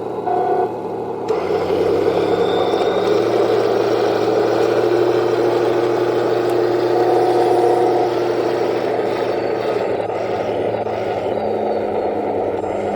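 Henglong 1:16 RC T-72 tank running, its sound unit playing a steady tank-engine rumble together with the whir of its metal-geared drive motors. It gets louder about a second in and holds.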